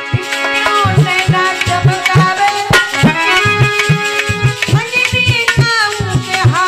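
Dholak drum playing a quick rhythmic beat under sustained harmonium chords: an instrumental passage of a Hindi devotional bhajan.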